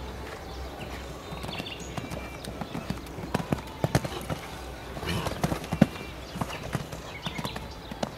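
A horse's hooves as it walks past close by on the arena sand: an irregular run of thuds and knocks, thickest in the middle, over a steady low rumble.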